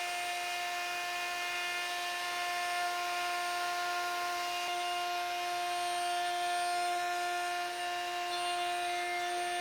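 Triton router in a router table running at full speed with a flush trim bit, a steady high whine with no change in pitch.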